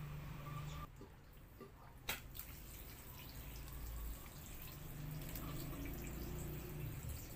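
Water dripping and trickling in a concrete well fed by an improvised pipe from a water barrel, faint, over a low steady hum, with a sharp click about two seconds in.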